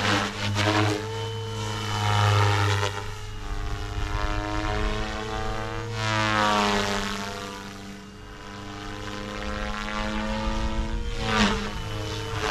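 XLPower Protos 380 electric RC helicopter flying fast passes: a steady rotor hum under a motor and rotor whine that rises and falls in pitch as it swoops by, three times.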